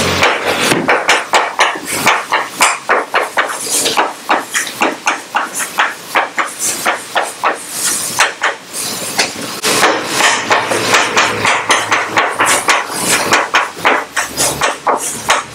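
Chalk writing on a blackboard: a quick run of sharp taps and short strokes, several a second, with brief pauses between characters.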